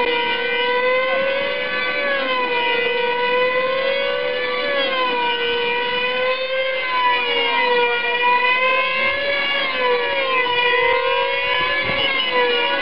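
Two F2D control-line combat model aircraft flying round in circles, their small high-revving two-stroke engines giving a steady, high-pitched whine. The pitch rises and falls over and over as the planes circle and pass, and the two engines' notes weave around each other.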